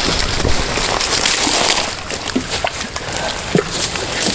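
Creek water sloshing and splashing, with a few short knocks.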